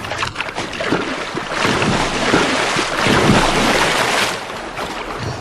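Water splashing and churning, loudest in the middle stretch before easing off.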